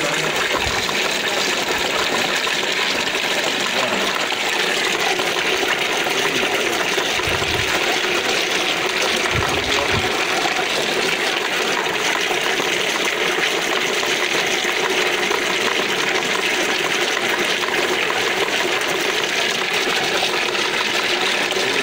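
Steady rush of water running through a small coffee pulper as it pulps ripe coffee cherries.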